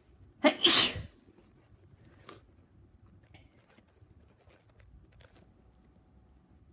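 A person with a stuffy nose sneezing once, a loud, sharp sneeze about half a second in.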